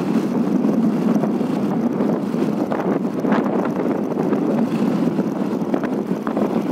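Motorcycle engine running steadily while riding, mixed with wind buffeting the microphone.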